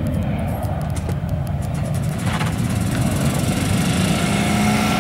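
Twin turbofan engines of a Cessna Citation V business jet climbing away after takeoff: a steady low rumble.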